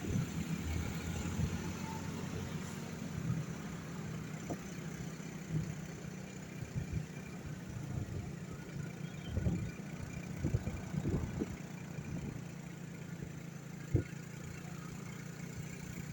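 Motor vehicle engine running steadily at low revs, with a few short knocks scattered through.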